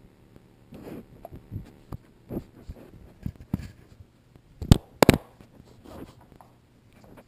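A foxhound nosing and mouthing a GoPro camera right at its microphone: scattered scrapes and knocks, with two sharp knocks about half a second apart a little after the middle.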